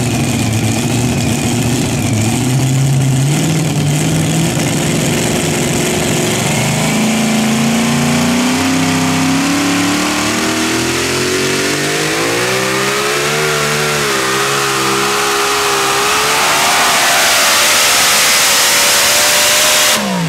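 Competition pulling vehicle's engine running at full power during a pull, its pitch climbing and wavering as it works down the track. It cuts off suddenly near the end.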